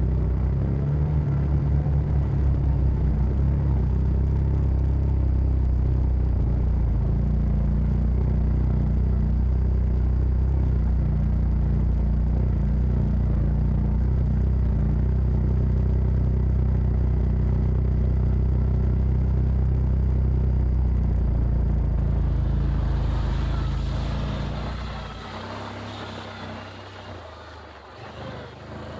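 Side-by-side off-road vehicle's engine running steadily with a low drone while driving the trail. About 24 seconds in it falls away sharply to a much quieter, lighter sound.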